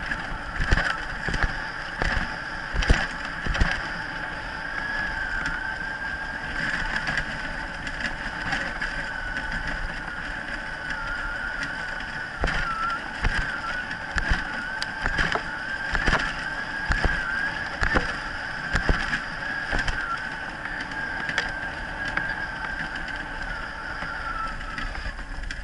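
Wheeled dog-sled rig rolling fast over a bumpy dirt track behind a running dog team, with frequent irregular knocks and rattles from the frame and a steady, slightly wavering high whine.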